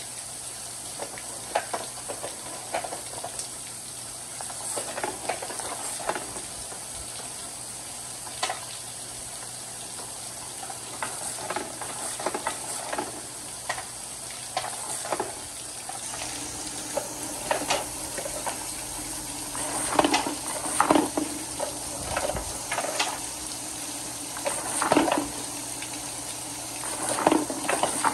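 Water trickling and splashing down plastic rain-gutter chutes, with wooden balls clicking and knocking as they roll and drop along them. The knocks come more often and louder in the last several seconds.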